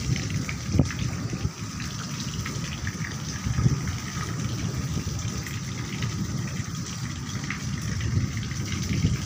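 Rain falling steadily, a continuous wash of noise with a heavier low rumble underneath and a couple of brief low thumps.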